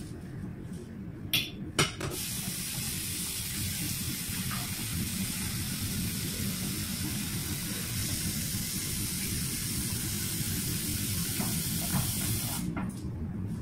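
Water running steadily from a tap, turned on about two seconds in and shut off near the end.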